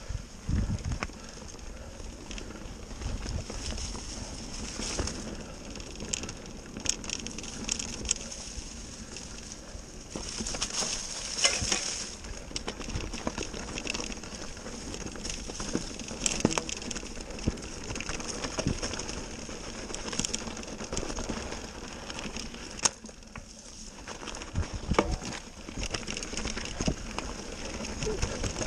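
Mountain bike tyres rolling over a dirt trail strewn with dry leaves, a continuous crackle with frequent knocks and rattles as the bike jolts over roots and bumps.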